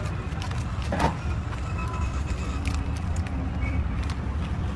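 Steady low rumble of street traffic, with scattered sharp clicks and crinkles of aluminium foil takeaway trays being lidded by hand, and one louder knock about a second in.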